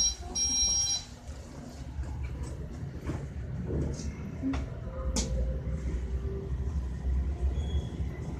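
Passenger lift: a high beeping tone that stops about a second in, then the steady low rumble of the lift car travelling in its shaft, with a few light clicks.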